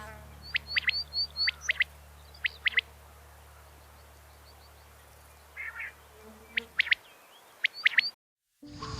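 A bird calling in clusters of short, sharp, high chirps and quick down-slurred notes, with pauses between the clusters. The clip cuts to silence shortly before the end.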